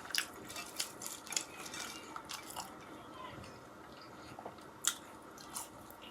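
A person chewing a mouthful of food, with short wet mouth clicks and smacks every half second or so, one louder smack near the end.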